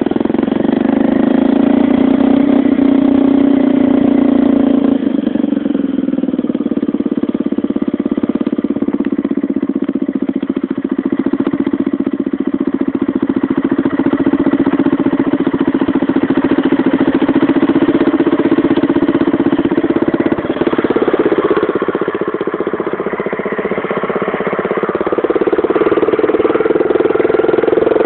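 Small single-cylinder four-stroke motorcycle engine running steadily, its pitch shifting a little about five seconds in and again about twenty seconds in.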